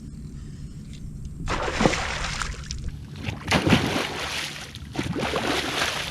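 Water splashing and sloshing in three surges about a second and a half apart, after a quiet first second and a half.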